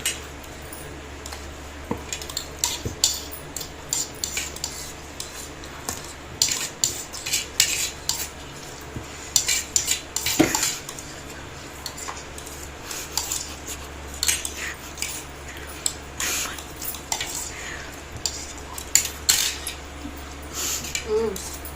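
Metal cutlery scraping and clinking against plates in many quick, irregular strokes as chowmein is eaten in a hurry.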